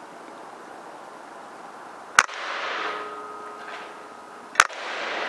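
Two sharp shots from a PCP air rifle, about two and a half seconds apart, each followed by about a second of hiss.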